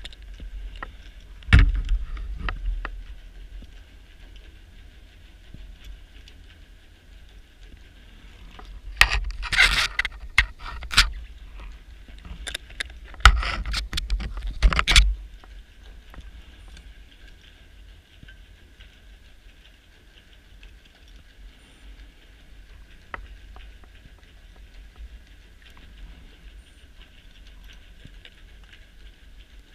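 Scuba diver's exhaled bubbles heard underwater, rushing and rumbling in three bursts: a short one a second or two in, then two longer ones around the middle. A faint steady hiss runs underneath.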